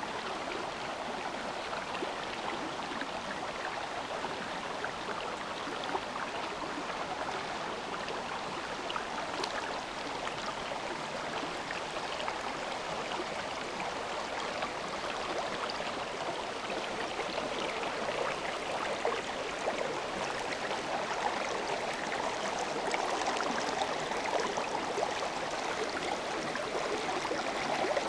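A forest stream flowing, a steady babbling rush of water over stones that grows a little louder in the second half.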